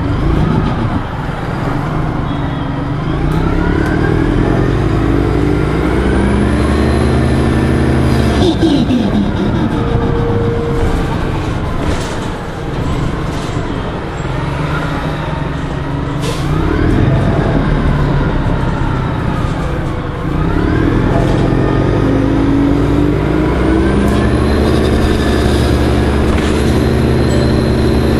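Orion 05.501 CNG transit bus, its engine and drivetrain loud, running with the pitch rising as the bus accelerates. The pitch drops as it eases off about eight seconds in, then rises again twice as the bus picks up speed.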